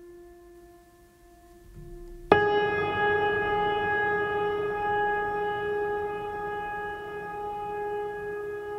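Background music of long held instrumental notes: a soft sustained note, then a louder one that starts suddenly about two seconds in and slowly fades.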